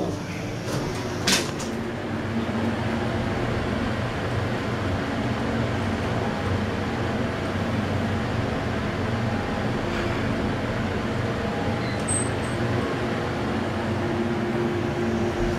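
A Montgomery hydraulic elevator car travelling up, heard from inside the cab: a sharp click about a second in, then a steady low hum and ride noise from the pump-driven run.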